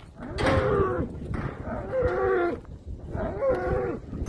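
A young bull bellowing three times, each call about a second long and rising then falling in pitch, the calls coming roughly a second and a half apart; he is calling for the cows.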